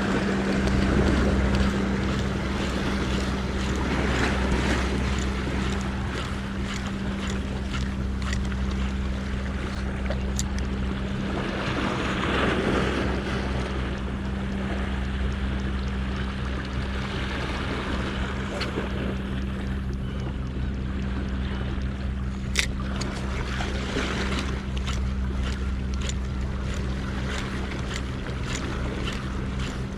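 Sea surf washing against rocks in surges every few seconds, with wind on the microphone, over a steady low hum. A sharp click about two-thirds of the way through.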